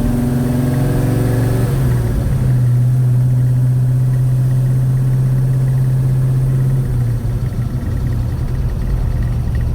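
Chevy 307 small-block V8 running, a steady low engine note that changes pitch about two seconds in and eases off near seven seconds.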